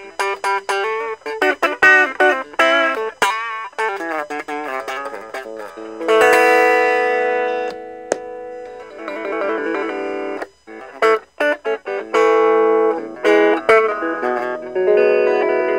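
Electric guitar played through a Raizin "Vintage Champe Box" effects pedal. Quick picked single-note lines, some with wavering pitch, lead to a chord struck about six seconds in and left ringing. More short phrases and sustained chords follow.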